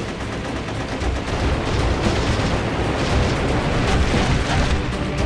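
Sound effects of battle: a dense, continuous rumble of explosions and gunfire.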